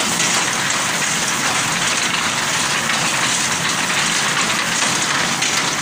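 Tractor-mounted reaper cutting a standing grain crop: the cutter bar and conveyor clatter and the stalks swish through, over the running tractor engine, a loud, steady, dense noise.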